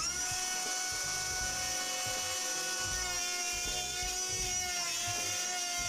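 Cordless brushless trim router running at full speed with a steady whine while routing the edge of a chipboard offcut. The pitch wavers slightly a couple of times as the bit takes the cut.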